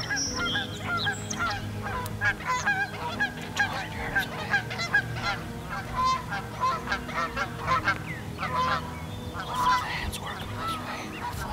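A flock of geese honking, many short calls overlapping throughout.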